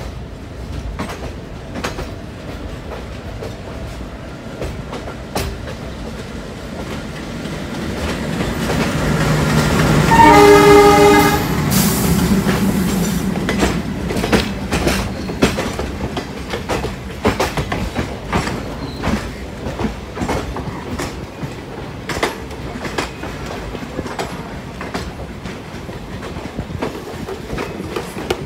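Clickety-clack of passenger-train wheels over rail joints, with an oncoming locomotive growing louder and sounding its horn for about a second and a half, about ten seconds in. The locomotive then passes close by with a spell of loud rumbling, and its coaches clatter past.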